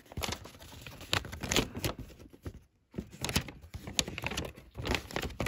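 Folded paper instruction leaflet rustling and crinkling as it is unfolded and handled, in irregular crackles with a short pause about two and a half seconds in.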